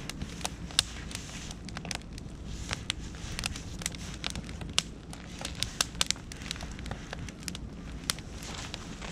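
Beech and oak wood fire crackling, with frequent sharp, irregular pops.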